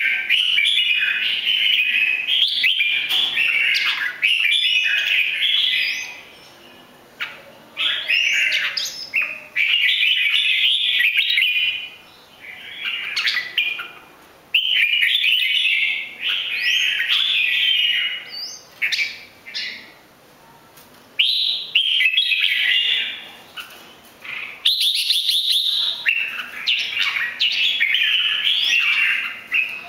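Red-whiskered bulbul singing: bursts of quick chattering notes lasting a few seconds each, with short pauses between them, and now and then sharp notes that sweep up high.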